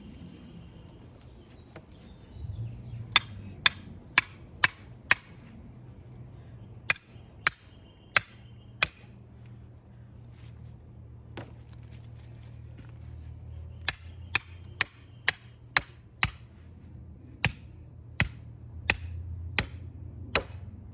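Hammer striking J-hooks (curved rebar stakes), driving them into the ground to anchor the containers. Sharp, ringing strikes come in four quick runs of four to six blows, about two a second.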